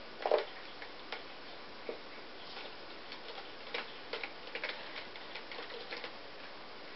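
Kittens' claws catching on a sisal-rope scratching post as they climb and cling to it: irregular soft clicks and scratches, with one louder knock near the start.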